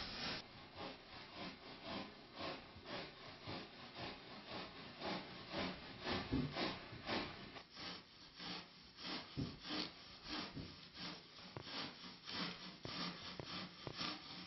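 Hand cross-cut saw sawing through a block of white foam, with a regular back-and-forth rhythm of rasping strokes about twice a second.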